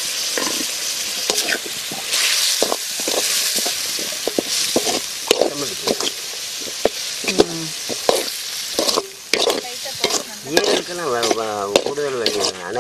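Goat liver sizzling as it fries in a large metal pan, with a spoon stirring it and repeatedly scraping and knocking against the pan.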